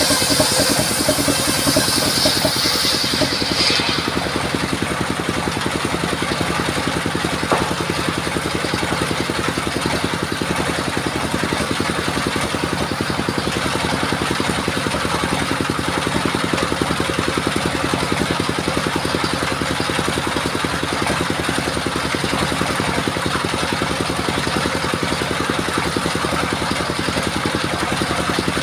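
The engine of a mobile circular sawmill running steadily. At the start the blade is finishing a cut through a sengon log, a bright high whine and hiss that stops about three and a half seconds in, leaving the engine running on with the blade spinning free.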